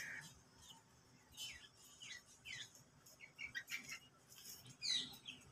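Young Cochin bantam chickens peeping: a scattering of short, faint chirps that fall in pitch, the loudest near the end.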